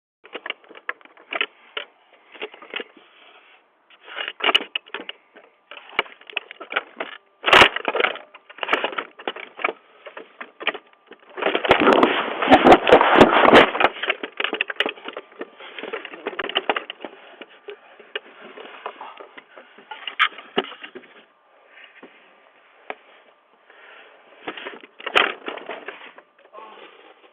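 Clattering, scraping and knocking heard through a doorbell camera's microphone in irregular bursts: a sharp knock about seven and a half seconds in, and the loudest, densest stretch from about twelve to fourteen seconds in.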